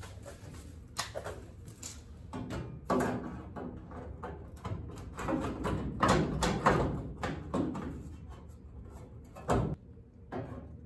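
Irregular clunks, knocks and rustling as a sheet-steel inner rocker panel and tools are handled and set in place for welding.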